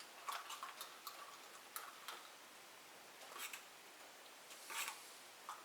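Wood-ash slurry being stirred in a jar: faint, irregular knocks and swishing scrapes of the stirrer against the container.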